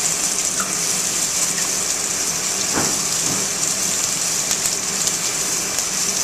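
Thick pork chop sizzling steadily as it sears in a hot cast iron skillet.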